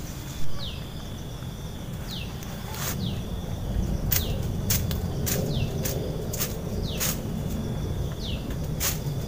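A bird repeats a short, falling whistled note about seven times over a steady high insect tone, while twigs and leafy branches crackle and snap sharply as they are handled. A single knock sounds just under half a second in.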